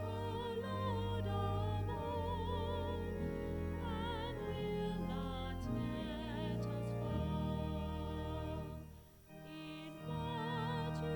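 Church special music: a classically styled solo melody sung with strong vibrato over sustained low accompaniment. It pauses briefly about nine seconds in, then resumes.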